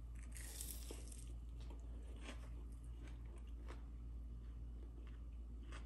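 A man biting into and chewing a piece of Texas toast topped with summer sausage. There is a crunchy bite about half a second in, then faint chewing with small scattered crunches.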